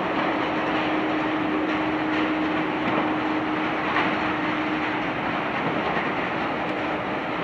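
Jet engines of a taxiing Boeing 767 freighter at idle power: a steady rushing noise with a steady low hum.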